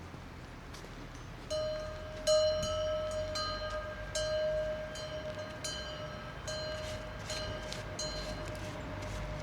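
A bell-like metal tone struck again and again at one pitch, about a dozen strikes at an uneven pace starting a second and a half in, each ringing on before the next.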